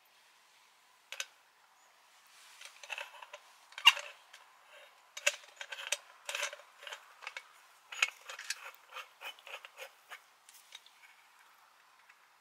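Irregular sharp clicks and light clatter of small hard objects being handled: one click about a second in, then a quick uneven run of clicks until shortly before the end.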